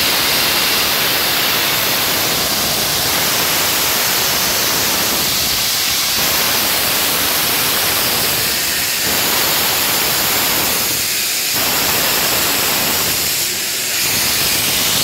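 BR Standard Class 7 Pacific steam locomotive 'Britannia' letting off a loud, steady hiss of escaping steam as it pulls slowly out of the platform.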